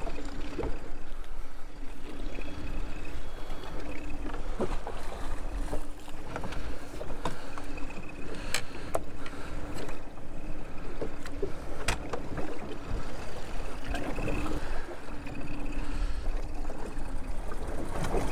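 Water lapping against a fishing boat's hull with wind buffeting the microphone, under a faint hum that comes and goes. A few sharp knocks and clicks of handled gear stand out, two of them about halfway through.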